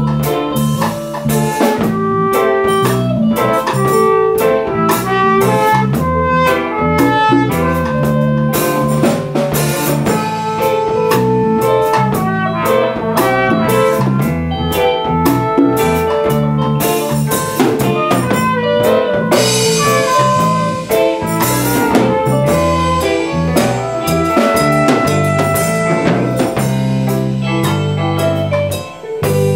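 A rock band playing an instrumental passage: guitar over a drum kit with cymbals, with a brief drop in loudness shortly before the end.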